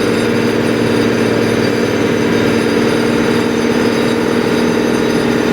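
A heavy engine running steadily at a constant speed, a loud even hum with no change in pitch.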